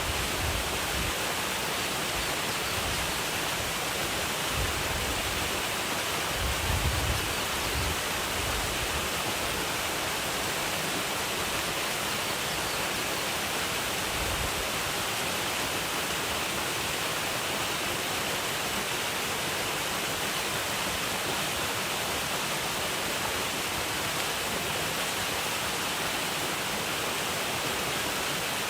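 Waterfall pouring steadily, a constant rushing hiss of falling water, with a few brief low rumbles in the first several seconds.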